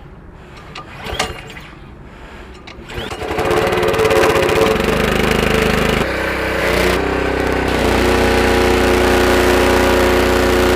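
Simpson MegaShot pressure washer's Honda GC single-cylinder four-stroke engine pull-started on its first start with the choke on, catching about three seconds in and then running steadily and loudly. About six seconds in its note shifts and then holds.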